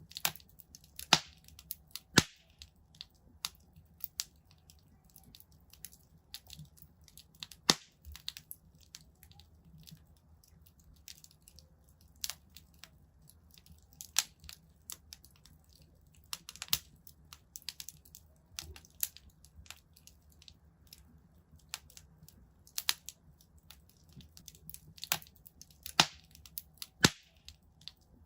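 Wood fire in a fireplace crackling, with irregular sharp pops and snaps, a few of them loud, over a faint low rumble of the flames.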